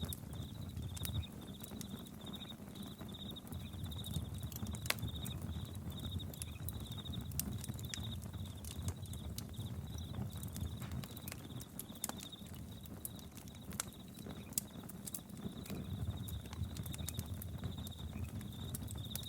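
Campfire crackling with scattered sharp pops over a steady low rumble, while a cricket chirps on and on in short, evenly spaced high pulses.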